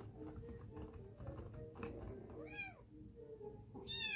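Kitten meowing twice in high-pitched, arching calls, one about two and a half seconds in and a louder one near the end, over soft background music.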